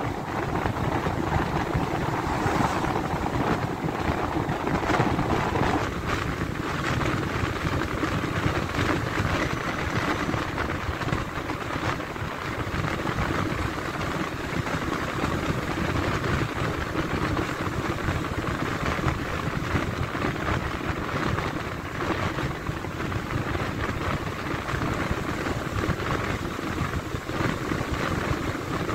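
Steady rumble of a moving vehicle, with wind noise on the microphone.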